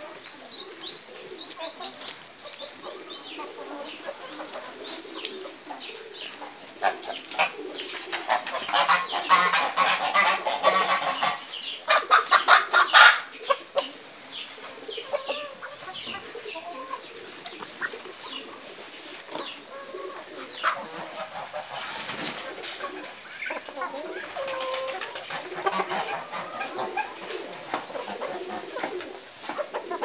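Flock of free-range chickens clucking and calling, with a louder stretch of rapid, repeated calls from about eight to thirteen seconds in.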